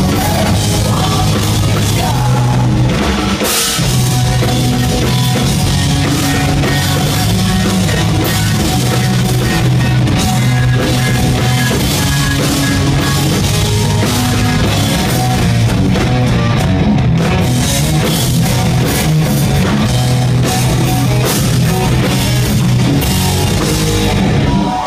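Rock band playing live at full volume: electric guitars, bass and drum kit.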